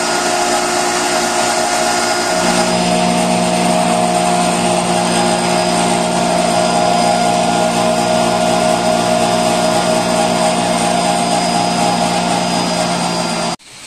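BS-180 hammer mill with knife-type blades running: a loud, steady motor whine with several held tones. A lower hum joins about two seconds in, and the sound cuts off abruptly near the end.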